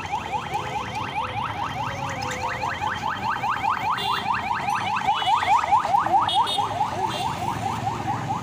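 An electronic siren sounding a fast, even run of rising chirps, several a second, without a break.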